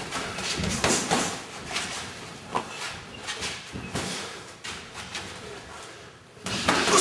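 Boxing sparring: irregular thuds and slaps of gloved punches, with a louder burst near the end.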